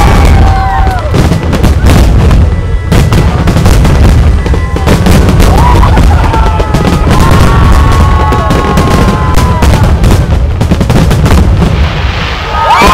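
Fireworks display: aerial shells bursting in rapid, continuous bangs and crackles, loud enough to overload the recording, with a held tone running under them through the middle.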